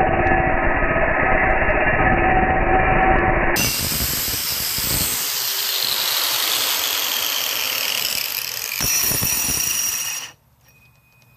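Metabo angle grinder with a diamond cup wheel grinding wet stone: a steady motor whine over a coarse grinding rasp. About three and a half seconds in the sound turns to a brighter hiss as the spinning wheel comes off the stone, the motor's pitch slowly falling, with one more surge before the sound cuts off abruptly about ten seconds in.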